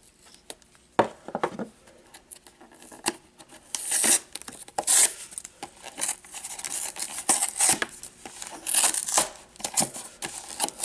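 A cardboard trading-card hanger box being torn open by hand: irregular tearing, scraping and crinkling of the packaging with sharp clicks, starting about a second in and coming in bursts, the loudest near the middle and again near the end.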